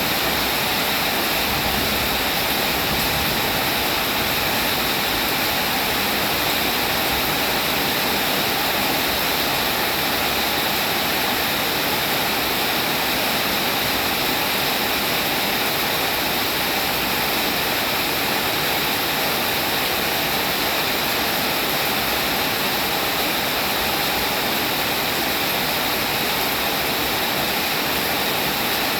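Steady, heavy rain falling, a dense even hiss that does not change, with no single drops or other sounds standing out.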